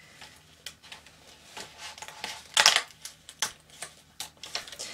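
Printed card paper crackling and rustling as pre-die-cut pieces and the waste strip are pushed and pulled out of a Studio Light 3D die-cut sheet, the little uncut tabs snapping free. Scattered short crackles, loudest about two and a half seconds in.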